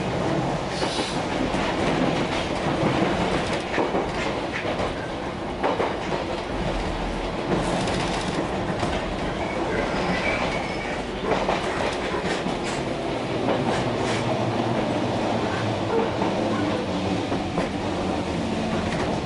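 Electric commuter train running, heard from inside the carriage: a steady rumble of wheels on rail with irregular clacks and knocks as the wheels cross rail joints and points.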